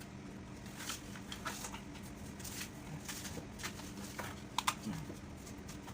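Scattered light clicks and taps of hands and tools working on a chainsaw's casing, with two sharper knocks about four and a half seconds in, over a faint steady hum.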